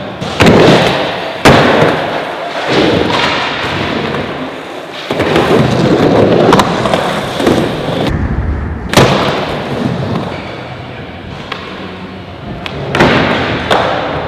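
Skateboard wheels rolling on a concrete floor, broken by several sharp cracks and slaps of boards popping and landing on the concrete and obstacles, with echo from a large hall.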